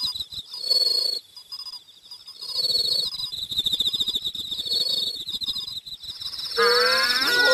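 Crickets chirping in a cartoon night garden: a fast, high trill that pulses continuously, with softer, lower chirps about every two seconds. Near the end a louder, wavering voice-like sound comes in over the chirping.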